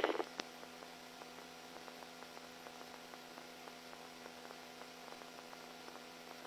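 Police radio channel idle between transmissions: a short burst of noise and a click right at the start, then a faint steady electrical hum and hiss.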